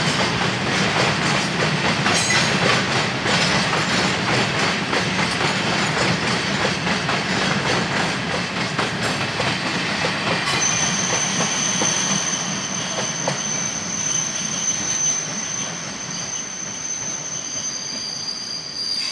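Container freight train wagons rolling past, wheels clicking over the rail joints. About halfway through, a high steady wheel squeal sets in and continues, with two high tones.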